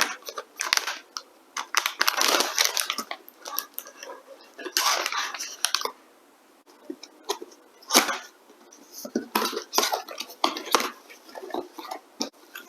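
Packaging being handled during an unboxing: irregular rustling, crinkling and light clicks and taps as parts are taken out and set down.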